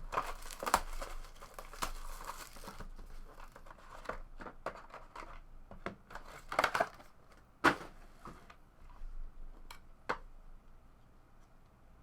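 Trading-card box packaging being torn open and crinkled for the first couple of seconds, then scattered clicks and rustles of the packaging and cards being handled.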